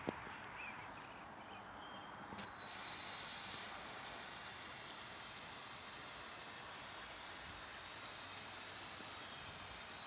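Garden hose spraying a light mist of water, a steady hiss that comes on about two seconds in, louder for the first second, while freshly filled cracks in a concrete driveway are dampened.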